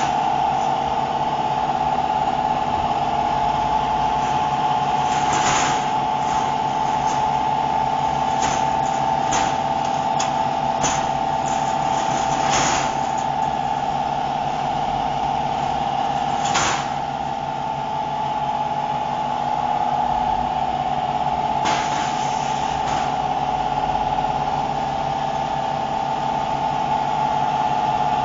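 A CNC machine running a job: a steady high whine from the machine with a low hum beneath, broken by a few short hissy crackles at irregular moments.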